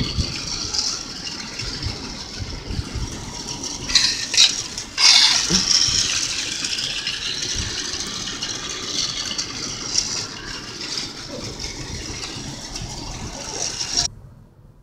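Battery-powered toy train running on its track, a continuous rattle with a few louder clatters about four to five seconds in; it cuts off suddenly near the end.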